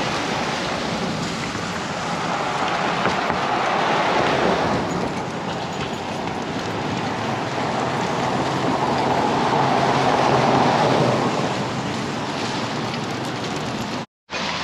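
Steady rushing noise of rain falling outdoors, growing louder twice, then cutting out for a split second near the end.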